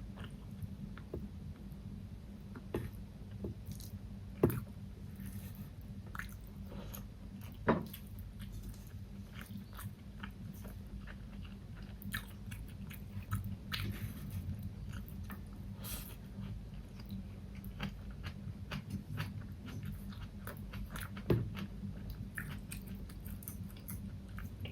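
Close-miked chewing and biting of food, with many small wet mouth clicks and three sharper, louder clicks, over a steady low hum.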